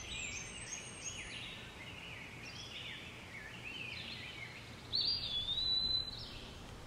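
Woodland birdsong: quick, varied chirping phrases from songbirds, with a louder, clear whistled note held for about a second near the end.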